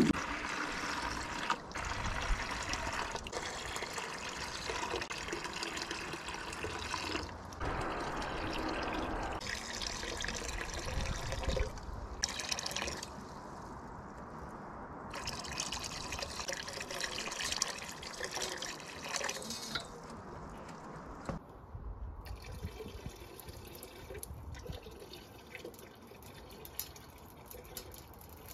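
Water poured from a plastic jug into a plastic bucket, splashing and trickling in several pours with short breaks between them. The bucket is being filled to load a T-slot nut until it gives way.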